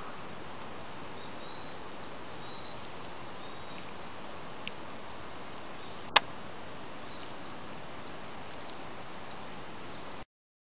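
Outdoor forest ambience: a steady hiss with many faint, short high chirps from small birds or insects. A single sharp click stands out about six seconds in, and the sound cuts off suddenly near the end.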